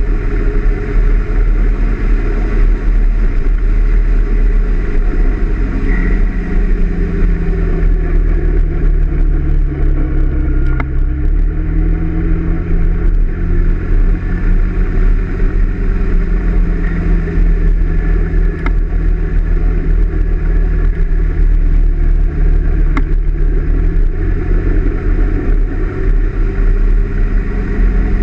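Honda PCX 125 scooter's single-cylinder engine running under way, heard from on board with heavy wind rush on the microphone. Its pitch falls for a few seconds around ten seconds in and then climbs back.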